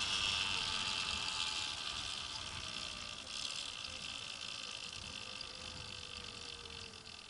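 Rushing hiss of wind and tyres on pavement while riding small electric dirt bikes, fading steadily as they slow down, with a faint motor whine gliding downward in pitch.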